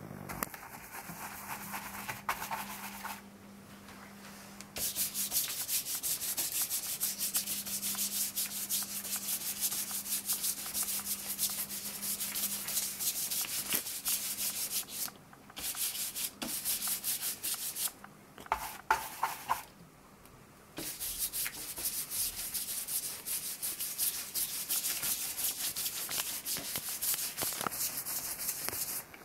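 Cloth pad rubbing quickly back and forth over a card stencil, scrubbing paint through its cut-outs onto the paper beneath. The rubbing comes in long bouts and stops briefly a few times.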